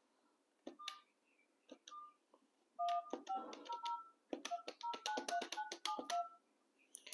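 DTMF keypad tones of an ECG-900D GSM fixed wireless desk phone as a phone number is keyed in: two lone key beeps about one and two seconds in, then a quick run of about a dozen key beeps, each with a light button click.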